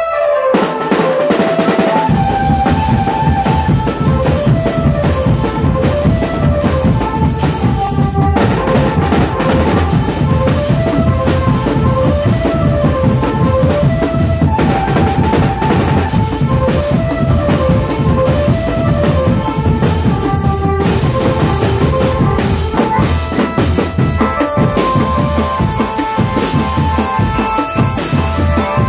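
Indonesian street drumband playing: snare and tom drums, bass drums and cymbals beat a dense, driving rhythm. The low bass drums come in about two seconds in, and a repeating high tune runs over the drumming.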